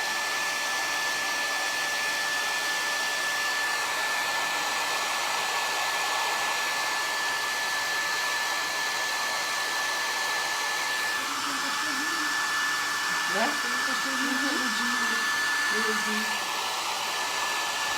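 Hair dryer blowing steadily: an even rush of air with a high whine from its motor.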